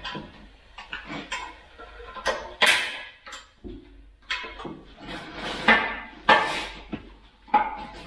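Hammer blows on steel, irregular and ringing, as a worn tine boss is driven out of a bale handler's frame.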